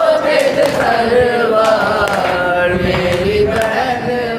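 Urdu noha sung by a male reciter over a microphone, with a group of men's voices chanting the long, wavering lines together. Sharp strokes of chest-beating (matam) keep time under the singing, and the voices begin to fade near the end.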